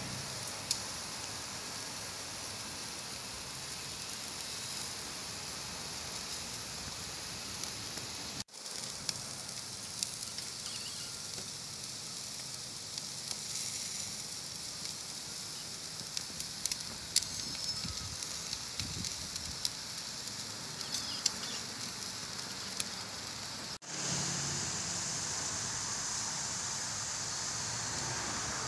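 Thick bone-in ribeye steak sizzling on a charcoal grill grate: a steady hiss with scattered sharp crackling pops from the fire below, dropping out for an instant twice.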